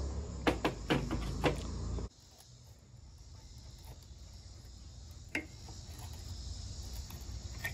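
Several sharp knocks and clicks in the first two seconds, then the low background hum drops away abruptly and a steady high chirring of crickets carries on, with one more knock near the middle.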